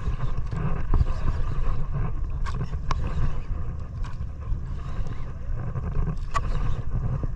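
Steady low rumble of a small fishing boat at sea, with a few sharp clicks scattered through it.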